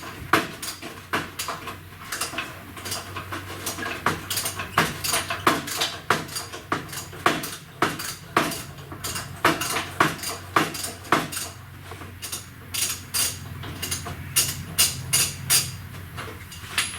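Hand tools working on the core support's bolts: irregular sharp metallic clicks and clinks, two or three a second, like a ratchet being swung back and forth. A steady low hum runs beneath.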